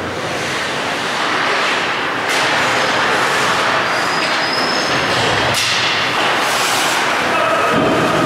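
Ice hockey play in an indoor rink: a steady loud rushing din with skate blades scraping and carving the ice, and a few short scrapes or knocks about two, five and a half and seven seconds in.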